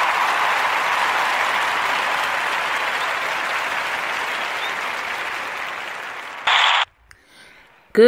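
Applause from a crowd, fading out slowly over about six seconds; a short loud burst of the same noise about six and a half seconds in cuts off abruptly, followed by about a second of near silence.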